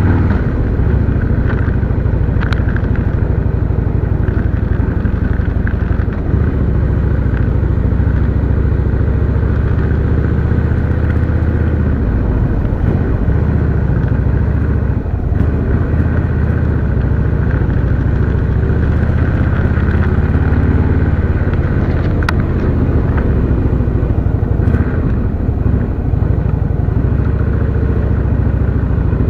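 Harley-Davidson V-twin motorcycle engine running steadily under way, a deep low rumble heard from the rider's own bike, with a few small clicks.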